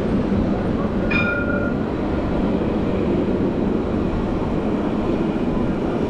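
Steady, low-heavy rumbling street noise, with a brief higher-pitched tone about a second in.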